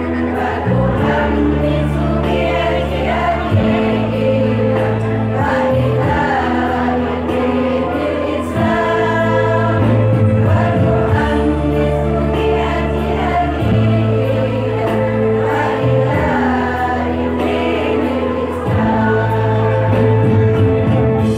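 Women's choir singing together over an accompaniment of held bass notes that change every couple of seconds.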